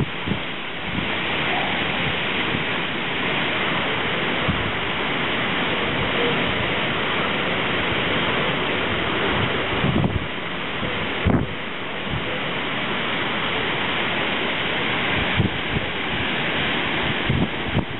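Storm wind rushing through trees with heavy rain, a steady loud roar with gusts buffeting the microphone, strongest about ten to eleven seconds in.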